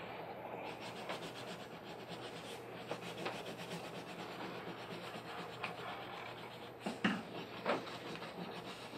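Red wax crayon rubbing back and forth on paper, colouring in with medium pressure: a steady run of quick scratchy strokes. Two louder short sounds stand out about seven seconds in.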